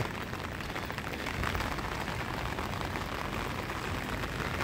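Steady rain falling on a wet paved street, an even hiss without a break.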